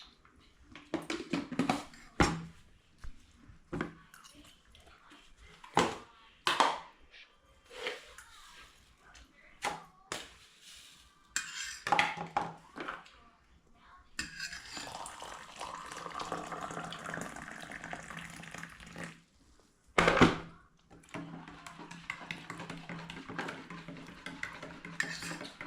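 Metal pots, dishes and utensils clinking and knocking as food is dished out and packed, in many separate sharp strikes. A steady rushing noise runs for several seconds in the second half, broken by one loud knock.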